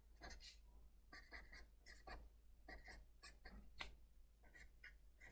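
Black marker writing by hand on a paper worksheet: a quick, faint run of short strokes as a line of words is written out.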